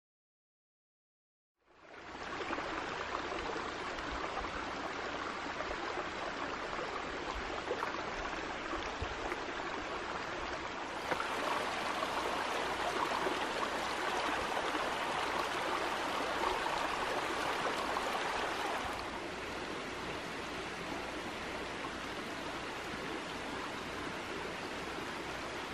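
Shallow mountain stream running over rocks: a steady rush of water that starts about two seconds in, grows louder about eleven seconds in and drops back a little near nineteen seconds.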